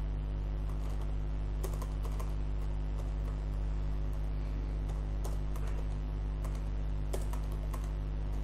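Keystrokes on a computer keyboard: irregular, unevenly spaced clicks as a line of text is typed. A steady low electrical hum runs underneath.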